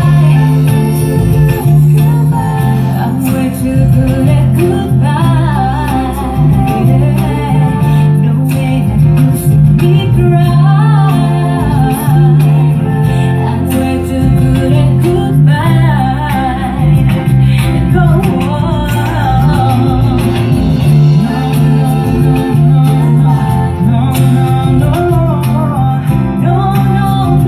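A song with singing over guitar and heavy bass, played loud through a small P.A. speaker system as a sound check.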